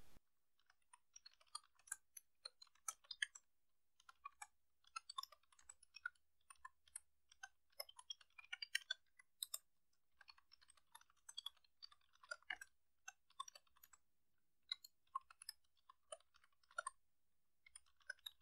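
Computer keyboard typing: quick, irregular keystroke clicks in short runs separated by brief pauses.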